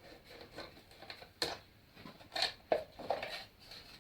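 Light, scattered clicks and taps of a screwdriver and small parts as screws are taken out of a motorcycle's cover, the sharpest click about a second and a half in.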